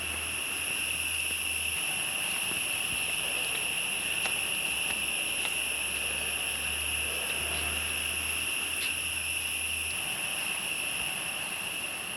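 Steady high-pitched insect drone, one unbroken tone held throughout, with a few faint ticks.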